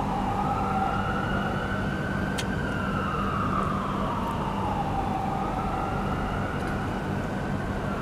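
Ambulance siren wailing, its pitch rising and falling slowly about once every five seconds, over a steady low hum.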